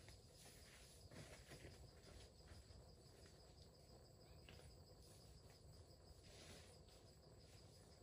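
Near silence: faint woodland ambience with insects trilling in a steady, high, fast pulse.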